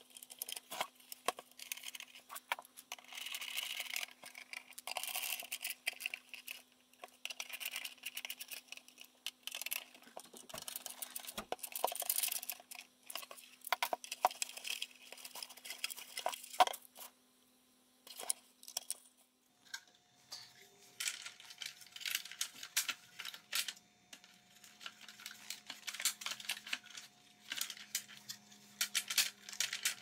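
Plastic housing parts of a Hoover Elite 700 upright vacuum cleaner being handled and fitted together by hand: irregular clicks, scrapes and rattles of hard plastic. A faint steady hum runs under it and stops about two-thirds of the way through.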